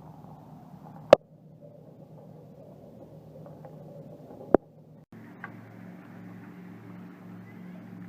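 A steady low motor hum, broken by two sharp clicks. About five seconds in it cuts to a different, pulsing hum.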